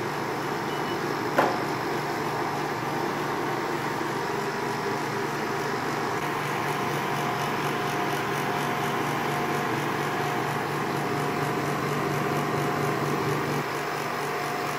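Portable room air conditioner running with its casing off: the compressor hums and the fan blows steadily while the unit cools. One sharp click comes about a second and a half in.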